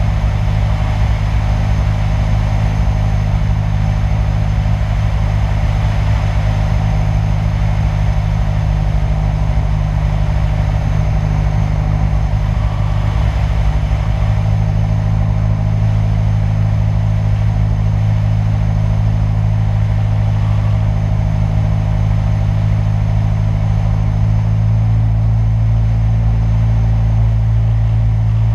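Single-engine light aircraft's piston engine and propeller droning steadily on approach, with a rush of air past the wing-mounted microphone. The drone's low tones shift slightly about halfway through and again near the end.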